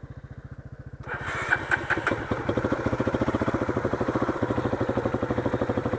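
Motorcycle engine idling with an even beat, then about a second in it grows louder as it is opened up and settles into a steady, low-revving run.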